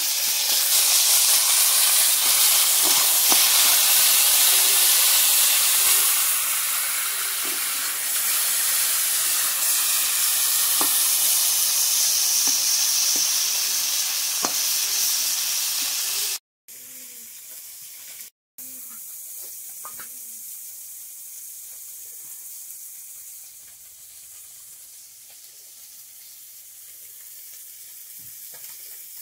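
Small shol (snakehead) fish frying in hot oil in a metal wok over a wood fire, a loud steady sizzle. It breaks off about sixteen seconds in, leaving a much quieter background.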